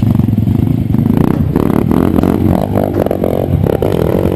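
Off-road vehicle engine running and revving, its pitch rising and falling from about a second in, with clattering over the top.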